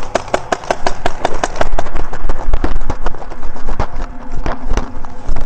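Tippmann X7 Phenom paintball marker firing rapidly, a fast, even string of sharp pops at about seven shots a second with a couple of short breaks.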